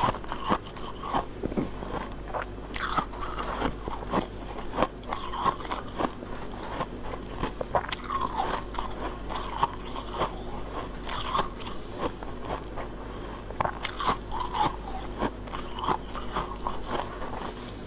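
Freezer frost ice bitten and chewed close to a clip-on microphone: a dense, irregular run of hard, sharp crunches and crackles, several a second.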